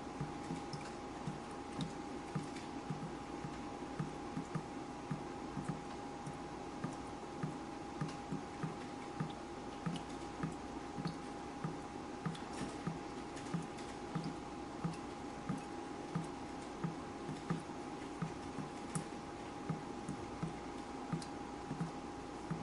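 Water dripping steadily, about two soft drops a second, with scattered faint higher ticks and a thin steady tone underneath.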